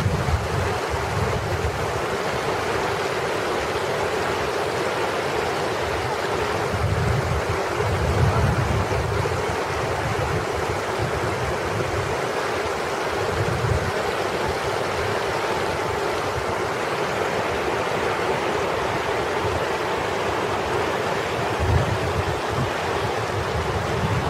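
Steady rushing noise with wind buffeting the microphone in low, irregular gusts.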